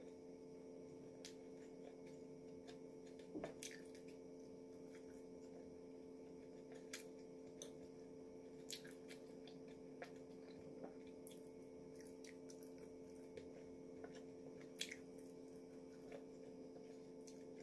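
Eating sounds: wooden chopsticks clicking now and then against a plate of pasta, with chewing, over a steady low hum. The loudest click comes about three and a half seconds in.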